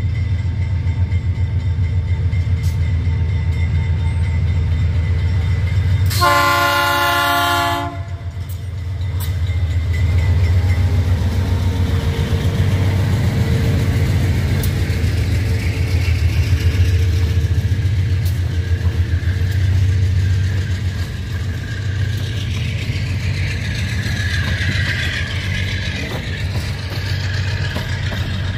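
Diesel freight locomotives passing close by, their engines running with a deep steady throb. About six seconds in comes one multi-tone horn blast lasting about a second and a half, sounded as the train works over a level crossing.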